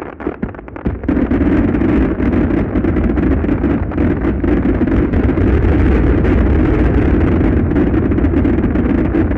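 Grand finale of a fireworks display: a few separate bangs, then from about a second in a dense, continuous barrage of aerial shell bursts that merge into one steady rumble.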